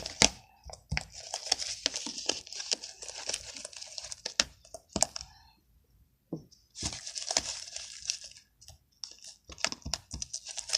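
Green glue slime being mixed and worked by hand: sticky crackling and tearing noises in stretches, with a pause of about a second partway through.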